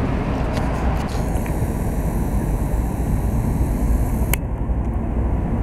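Road traffic at a street intersection: cars driving past with a steady low rumble. A single sharp click comes a little past four seconds in.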